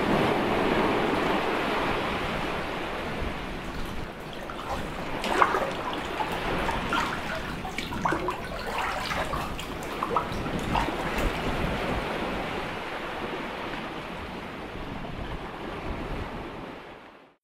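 Sea water washing and lapping, with a scattering of small splashes and trickles through the middle, slowly fading away to silence near the end.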